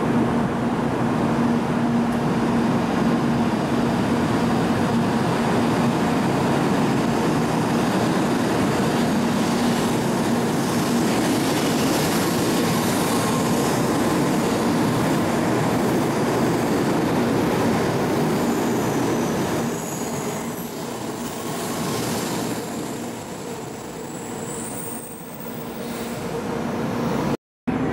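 N700-series Shinkansen train pulling out of the platform and running past, a steady loud rumble of wheels and running gear that fades away about twenty seconds in as the last cars leave.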